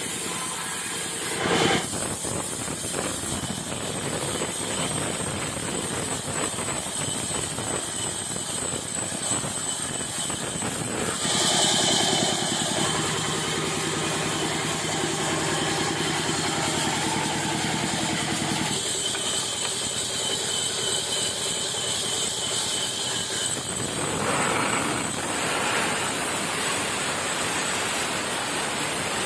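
Sawmill machinery running steadily: an engine or motor with a noisy whir, changing abruptly in character a few times.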